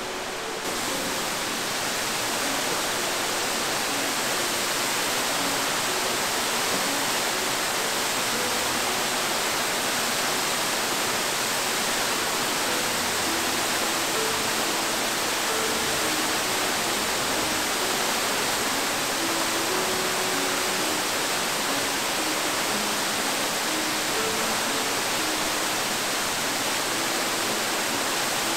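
Waterfall, partly frozen, pouring with a steady, even rush of water that comes up about a second in and holds.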